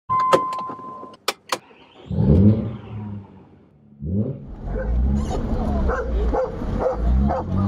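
Sharp clicks and a steady beep lasting about a second, then a car engine starts and revs about two seconds in. From about four seconds on the engine keeps running as the car drives, its pitch rising and falling.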